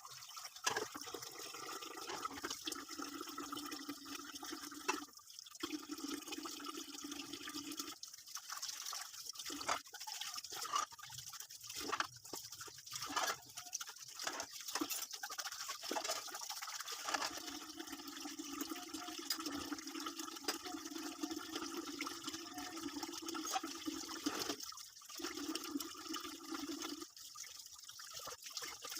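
Water running and splashing at a kitchen sink, with scattered short knocks and clatter, stopping and starting a few times.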